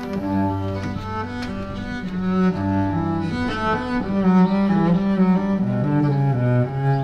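A solo cello playing a bowed melody, one note after another with a few notes sounded together.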